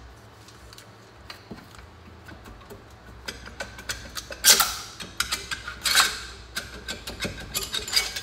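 Metal parts clicking and clunking as the cylinder head is worked loose and lifted off a Honda VT1100 V-twin engine: a few faint clicks, then from about three seconds in a run of sharp clicks and knocks, loudest about four and a half and six seconds in.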